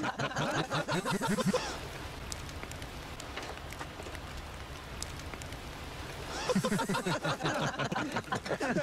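A group of men laughing for the first couple of seconds. Then a few seconds of low campfire crackle and outdoor hiss with a few faint clicks. The laughter starts up again about six and a half seconds in.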